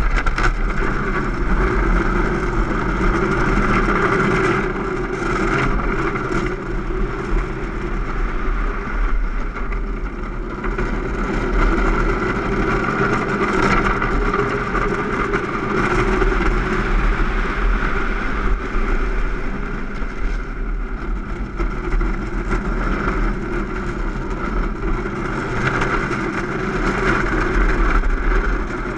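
Soap box cart coasting fast downhill on asphalt with no engine: a steady rush of wind over the onboard camera mixed with the rumble of its wheels on the road and small knocks and rattles from its frame.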